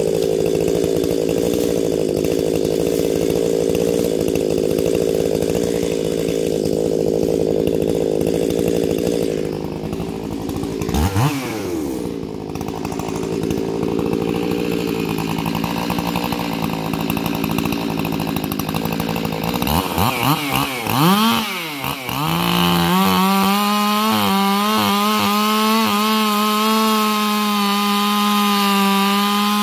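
Stihl MS361 two-stroke chainsaw idling steadily, blipped up and down once about eleven seconds in and a few more times around twenty seconds. From about twenty-two seconds it is held at full throttle, cutting into the base of a red maple trunk at a steady high pitch.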